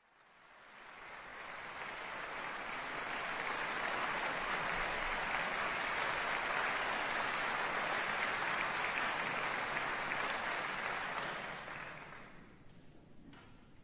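Concert audience applauding. It swells in over the first few seconds, holds steady, then dies away about twelve seconds in.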